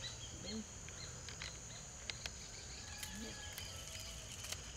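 Steady high-pitched insect drone, with a few faint sharp clicks from a machete blade cutting and peeling a caraguatá stalk.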